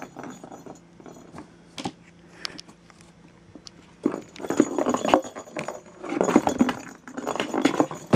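A kitten scrabbling and clawing inside a cardboard box, with scratching and rustling against the cardboard. A few light clicks at first, then two longer bouts of busy scrabbling from about four seconds in.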